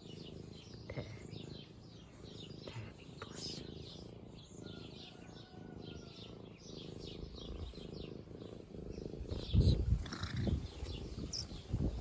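Domestic cat purring close to the microphone, a steady low rumble, with small birds chirping faintly in the background. Near the end, a few louder low bumps and rustles break in.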